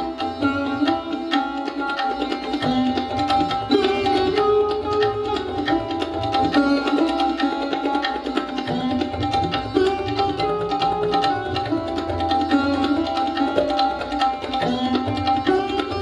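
Sarod and tabla playing a Hindustani classical raga together: quick plucked sarod notes over a running pattern of tabla strokes, with the low drum's tones sliding in pitch.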